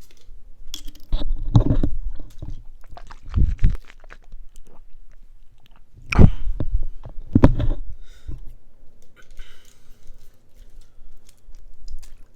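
Close-up crunching in several short bursts, sharp crackles with a low thud beneath each.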